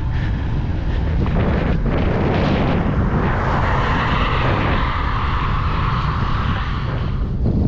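Wind buffeting the microphone, with a steady whirring that builds over the first few seconds and cuts off about seven seconds in.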